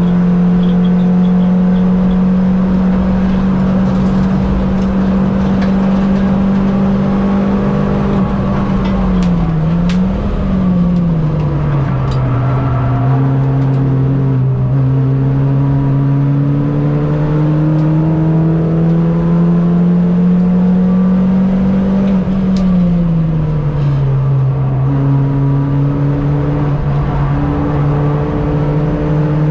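Racing Mini's engine running hard, its note climbing slowly for long stretches and falling quickly twice as the car slows, about a third and three quarters of the way through.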